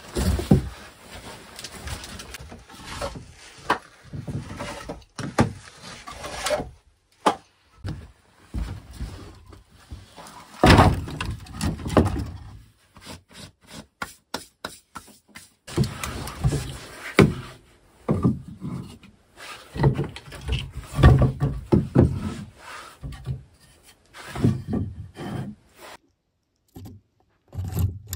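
Split firewood being loaded into the firebox of a brick sauna stove: irregular wooden knocks and clunks as logs hit each other and the firebox, some sharp and loud, with short pauses between.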